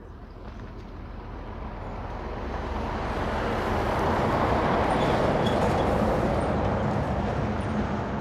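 Single-engine light propeller aircraft's engine running, growing steadily louder to a peak about halfway through, then easing off slightly.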